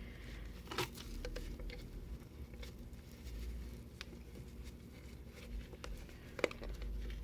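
Handling noise of a small elastic pouch and capo travel case: light rustling with scattered clicks and taps, one sharper click near the end.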